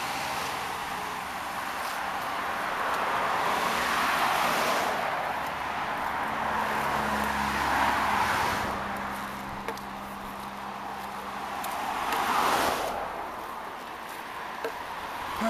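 Road traffic: several cars driving past close by, their tyre and engine noise swelling and fading with each pass, about three times.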